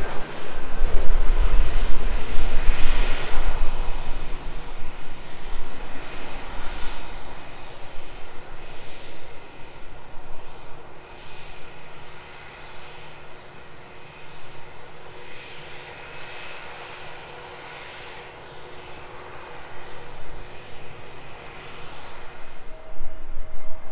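Jet engines of a Lufthansa Airbus A320-family airliner landing. The rumble is loudest in the first few seconds as it passes low, then fades slowly through touchdown and rollout, with a slight rise near the end.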